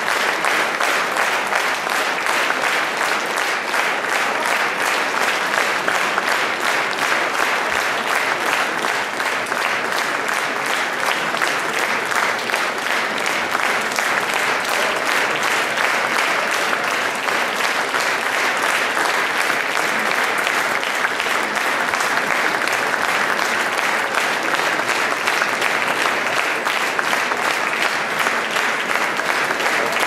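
Large theatre audience applauding steadily: dense, continuous clapping.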